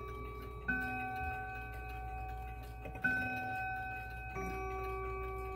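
Howard Miller 612-365 triple-chime mantel clock chiming on its rods: three struck notes, each left ringing into the next, a little under a second in, about three seconds in and again near four and a half seconds. The movement's tick-tock runs faintly underneath.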